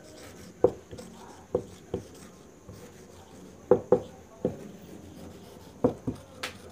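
A marker writing on a whiteboard: about eight irregular, sharp taps and short strokes as letters are written, with a brief high squeak near the end.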